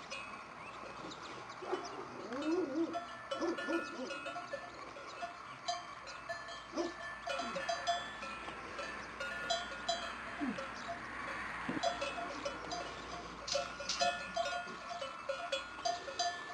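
Cattle bell on a bull's yoking gear clanking unevenly as the yoke and collar are fitted to its head, from about five seconds in.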